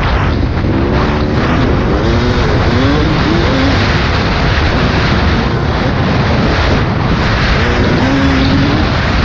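Two-stroke dirt bike engine, a Yamaha YZ250, revving up and down as it is ridden, its pitch rising and falling with the throttle over a loud steady rushing noise.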